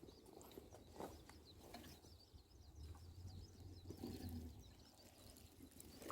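Near silence with faint bird chirping, many short high calls.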